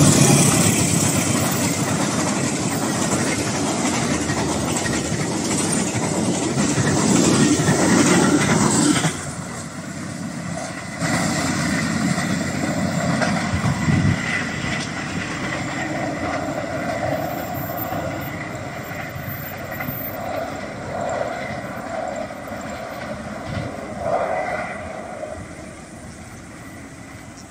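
Diesel-hauled passenger train coaches passing close at speed, a loud rush of wheels on rails that drops sharply about nine seconds in, then the train's running noise fading as it goes away.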